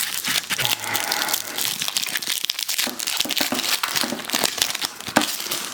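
Crinkling and tearing of a foil trading-card pack wrapper being handled and opened, a dense crackle that eases off near the end, with one sharper snap shortly before.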